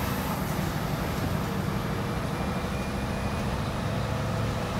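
Scania R730's 16-litre V8 diesel engine running steadily under load as the truck drives, heard from inside the cab along with road noise.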